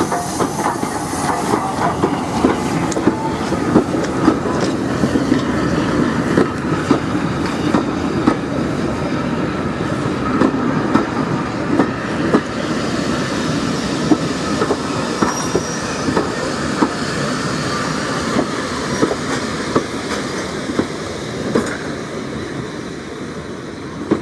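Steam train of vintage carriages rolling slowly past at close range. The wheels rumble steadily and click sharply as they cross the rail joints, easing off as the last carriage goes by near the end.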